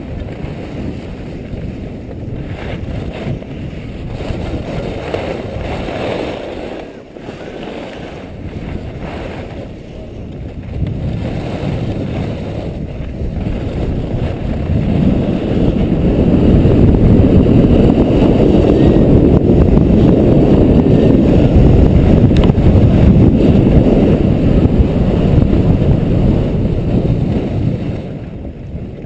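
Wind buffeting the microphone of a camera carried by a skier running downhill, with the rush of skis on packed snow. It builds through the middle, is loudest in the second half, and drops off just before the end as the skier slows.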